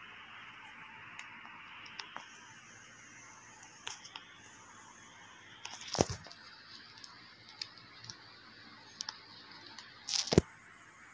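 A cat's paw batting at a gecko on a hard tile floor: scattered light taps, a sharp thump about six seconds in and a quick cluster of thumps near the end, over a faint steady hiss.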